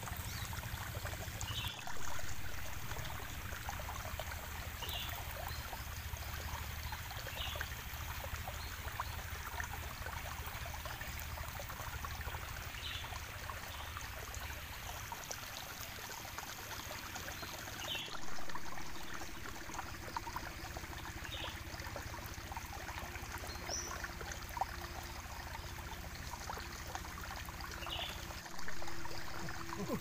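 Open wood fire crackling: a steady dense stream of small pops and ticks. The level swells briefly about two seconds in, again a little past halfway, and near the end.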